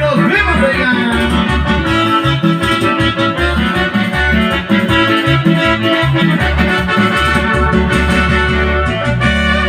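Instrumental band music with no vocals: an electronic keyboard carries the melody over a steady, pulsing bass line.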